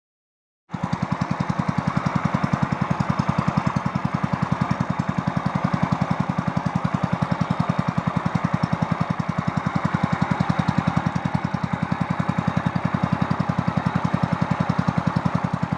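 Honda GX200 single-cylinder four-stroke engine running steadily with a fast, even putter, starting abruptly just under a second in.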